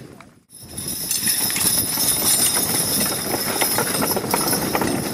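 Team of draft horses in harness moving at a walk: hoofbeats and the rattle of harness, with many small clicks over a steady noise. The sound cuts out briefly about half a second in.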